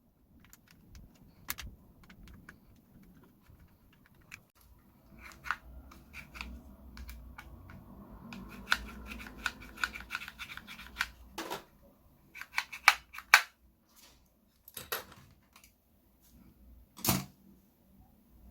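Electric scooter throttle and display housing being handled: irregular sharp clicks and light scraping of small plastic parts, with a few louder clicks in the second half.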